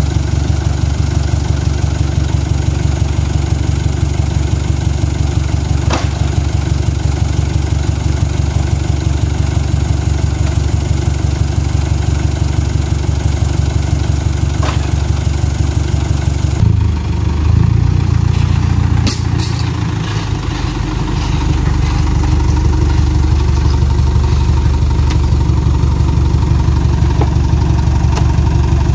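Truck engine idling steadily beside the loading, with a couple of sharp knocks as heavy oil palm fruit bunches are thrown up onto the truck bed. The hum is briefly unsteady a little past halfway, then settles again.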